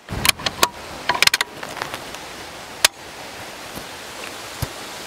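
PGW Coyote bolt-action rifle being handled: a quick run of clicks and clacks in the first second and a half, then one sharp clack a little before the middle. A steady hiss follows.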